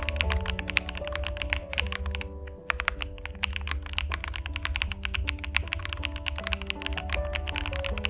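Fast typing on an LMK81 mechanical keyboard with lubed Ice Pink switches, modded stock stabilisers and a two-layer tape mod: a dense run of keystrokes that breaks off briefly about two and a half seconds in, over background music.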